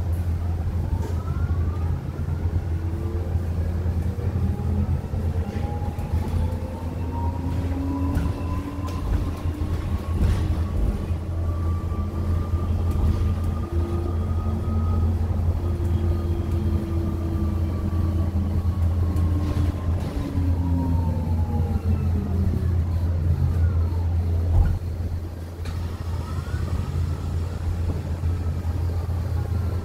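BYD K9 battery-electric bus's traction motor whining, with several pitched tones. The whine rises slowly as the bus accelerates, then falls as it slows, and starts rising again near the end. A steady low hum and scattered rattles run underneath.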